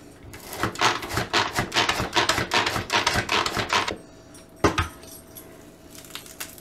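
Manual pull-cord food chopper being worked for about three and a half seconds, its blades spinning through cilantro and parsley in a quick run of rattling strokes. A single knock follows about a second later.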